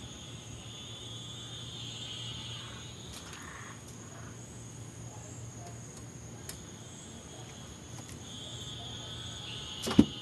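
Crickets trilling steadily in the night, with one sharp click near the end.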